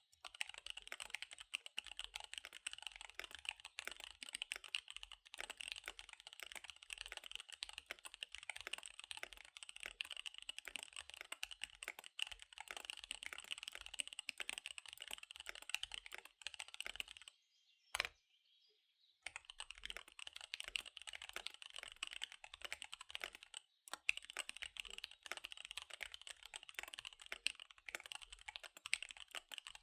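Fast typing on a KBD75 V3 custom mechanical keyboard with SP-Star Dark Magic Girl tactile switches and DSA keycaps, a rapid run of keystroke clicks. The typing stops briefly a little over halfway through, with one sharp click in the gap, then carries on.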